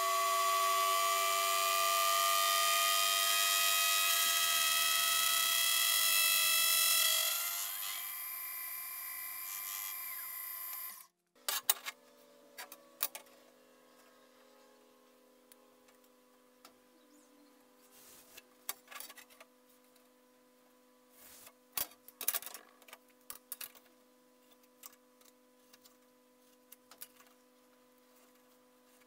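Milling machine's face mill cutting a metal bar: a loud, steady, many-toned whine that drops off about seven seconds in. After a sudden cut, light taps and scrapes from a steel rule and marker on a bench over a low steady hum.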